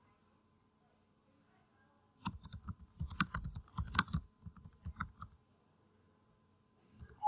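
Computer keyboard typing: a quick run of key presses lasting about three seconds, starting about two seconds in, then a couple of faint clicks near the end.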